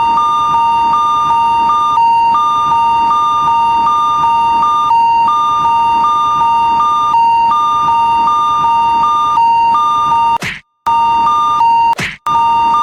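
Electronic level-crossing warning alarm ringing in a fast, steady two-tone beeping pattern. Near the end it cuts out briefly twice, each time just after a short swish.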